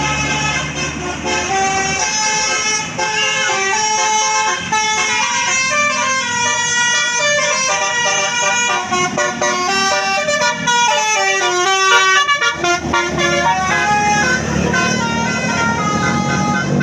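Basuri telolet musical horn on a tour bus playing a fast melody of short stepped notes that run up and down the scale.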